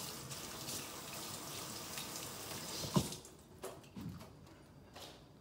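Kitchen faucet running, with hands rinsing under the stream; the water stops about three seconds in, at a sharp knock, and a few soft taps follow.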